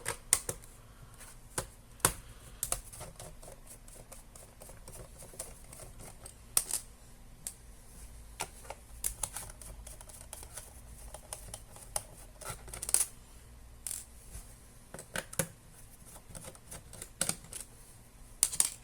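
Irregular light clicks and taps of a screwdriver and small screws against a laptop's plastic bottom case as the screws are taken out.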